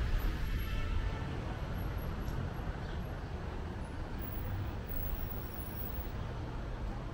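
City street traffic: a steady low rumble of passing vehicles, easing off over the first couple of seconds.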